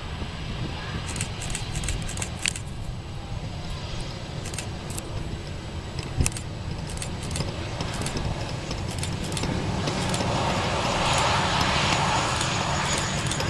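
Boeing 737-300's CFM56 jet engines running as the airliner rolls along the taxiway: a steady low rumble, with a rushing hiss that grows louder over the last few seconds. Scattered sharp clicks and crackle sound over it.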